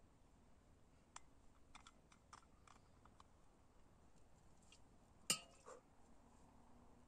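Several small clicks and taps as a metal bottle is handled, then one sharp clink with a short ring about five seconds in as the bottle is set down on stony ground.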